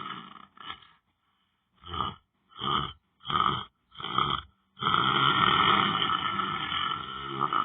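A person snoring: a long snore trails off, then after a short pause come four short, quick snorts in a row, followed by one long, loud snore near the end.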